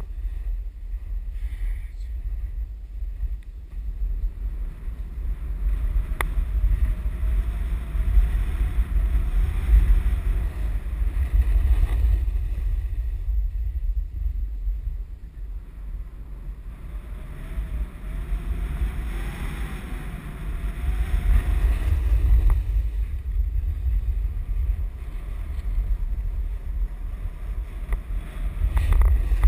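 Wind buffeting an action camera's microphone during a fast downhill run on a groomed ski slope, a heavy rumble with the hiss of sliding over snow. It swells and eases with speed, loudest around the middle and again near the end.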